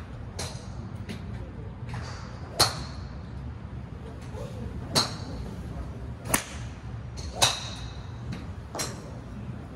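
Sharp clicks of golf club heads striking balls at a driving range, about six strikes at irregular intervals, some with a brief high metallic ring, over a steady low hum.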